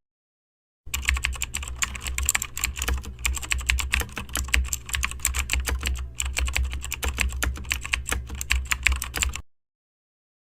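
Dense, irregular clicking and crackling over a steady low hum. It starts about a second in and cuts off abruptly near the end.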